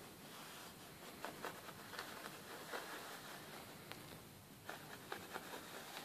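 Faint, short scratching and tapping of fingers on carpet, in small clusters about a second in and again near the end.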